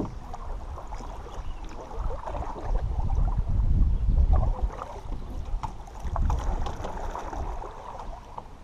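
Water moving around a canoe on a creek, with wind rumbling on the microphone and scattered light knocks and drips.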